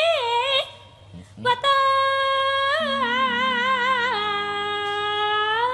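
A Javanese sinden (female singer) sings long held notes with ornamental turns and a wavering vibrato. She breaks off briefly about a second in, then resumes. Low steady notes sound underneath in the second half.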